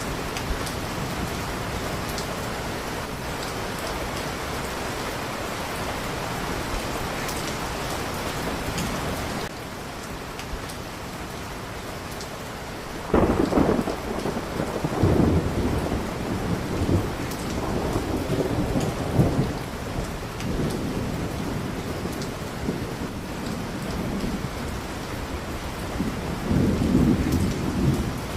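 Steady rain that eases slightly about a third of the way in. About halfway through, a sudden clap of thunder breaks in and rolls on in waves for several seconds, with another swell of thunder near the end.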